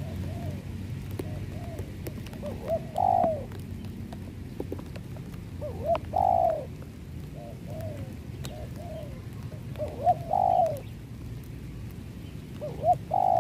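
Spotted dove cooing, a trained decoy bird calling: four phrases about every three and a half to four seconds, each a few soft lead-in notes ending in a louder, drawn-out coo, with quieter coos in between.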